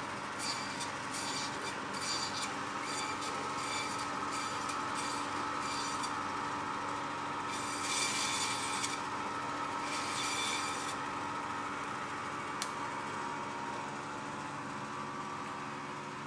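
Butcher Boy meat band saw running with a steady hum, its blade rasping in short repeated bursts as rib bones are pushed through it. After about eleven seconds the cuts stop and the saw runs on without load.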